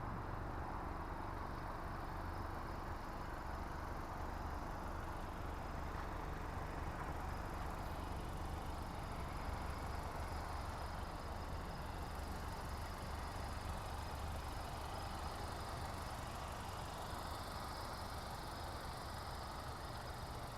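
A car engine idling: a steady low hum that holds even throughout.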